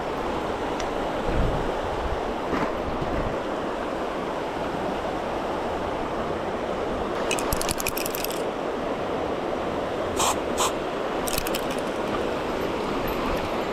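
River water rushing steadily. Three short bursts of rapid, high-pitched clicking come through it, about seven, ten and eleven seconds in.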